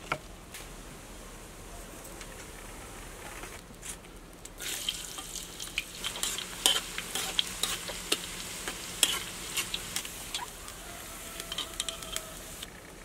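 Deep frying in a wok: hot oil sizzling and bubbling, with a metal utensil stirring and clicking against the pan. The sizzle cuts in about four seconds in and stops shortly before the end.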